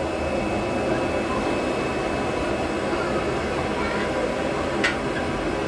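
Steady rushing of a blacksmith's forge fire under air blast, heating an iron shawl pin. A single sharp click sounds near the end.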